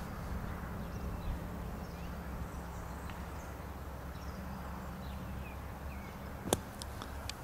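A golf club cutting through bunker sand to splash the ball out: one sharp hit near the end, followed by a few faint clicks, over a steady low outdoor hum.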